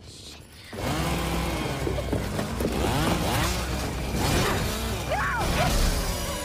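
An engine running loud and revving up and down in rising and falling sweeps, over a steady low rumble. It starts suddenly about a second in.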